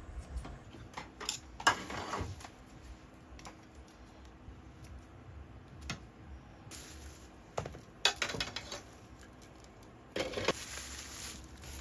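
Scattered light clicks and clatter of small objects being handled, with three short, louder noisy bursts: about two seconds in, around eight seconds and just after ten seconds.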